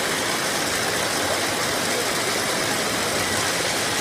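Braiding machine making elastic cord, running with a steady, even mechanical noise.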